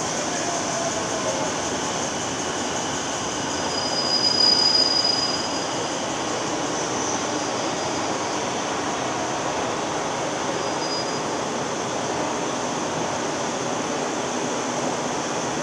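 Long escalator running steadily, with a constant mechanical noise from the moving steps and handrail. A brief high-pitched squeal comes about four seconds in, and a fainter one follows later.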